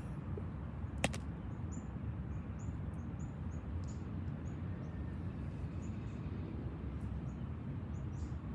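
Short, high chirps repeating two or three times a second over a steady low rumble, with one sharp click about a second in.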